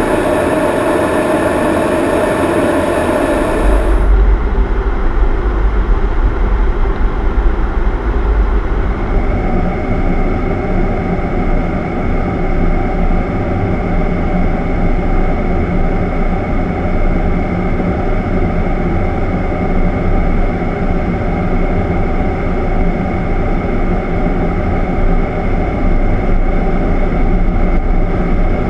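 Steady in-flight noise on the flight deck of a C-17 Globemaster III: a continuous rush of air and engine drone with a steady hum running through it. About four seconds in, a hissier sound gives way to a deeper rumble.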